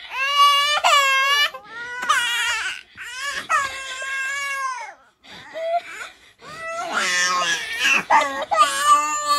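Baby crying: a run of loud, high-pitched wails, each a second or so long with short breaks for breath, dropping to a few quieter sobs about five seconds in before the wailing starts again.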